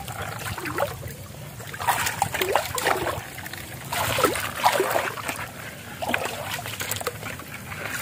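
Rubber boots wading through shallow water, splashing and sloshing irregularly with each step.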